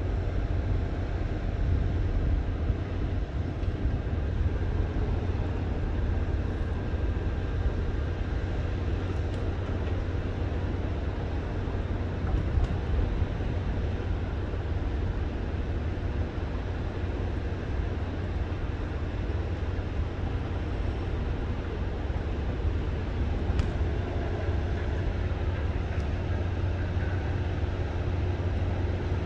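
Steady low rumble of wind on the microphone, with a constant even hiss above it.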